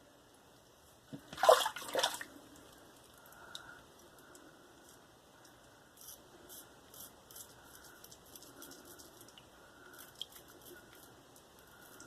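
Two short splashes of water about a second in, typical of a safety razor being rinsed. These are followed by faint, scattered scratchy strokes of a slant safety razor cutting through lather and stubble.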